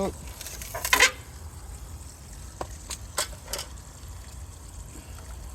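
Sheet-metal access panels on an electric water heater being opened: a loud clatter about a second in, then a few sharp clicks, over a steady low rumble.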